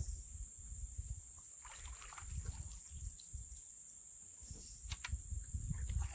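Canoe being paddled in light rain: paddle strokes splashing and dripping in the water, with a couple of sharp knocks about five seconds in, over a steady hiss of rain and low rumbling on the microphone.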